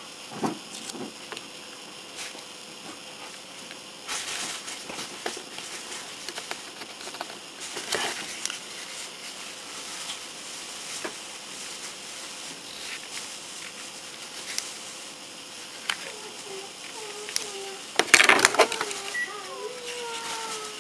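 Fingers handling a plastic model kit's wing panel and pressing masking tape onto it: scattered faint clicks, taps and rustles, with a louder rustle about eighteen seconds in.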